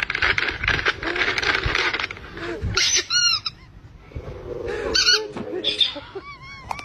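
A plastic snack bag crinkling for about two seconds, then a rubber penguin squeaky toy squeaked in several short, high squeals. In between, the Chihuahua gives a low growl with its teeth bared.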